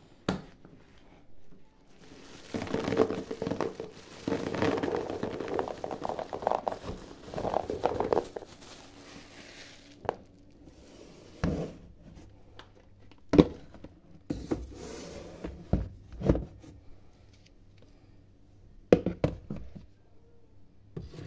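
Plastic storage jars of dried fruit being handled: about six seconds of dense rustling and rattling as the fruit shifts in plastic, then several separate sharp knocks as the jars and lids are set down.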